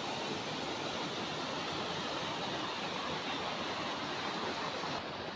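Fast-flowing brown floodwater churning through a breached stream channel, a steady rushing noise.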